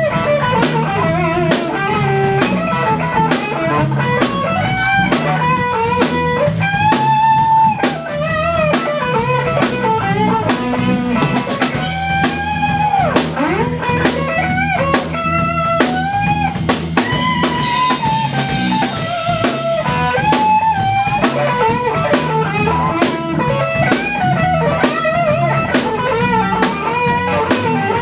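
Live band playing an instrumental passage: an electric lead guitar solos with bent, wavering notes over bass guitar and a drum kit. About thirteen seconds in, the guitar swoops down in pitch and back up.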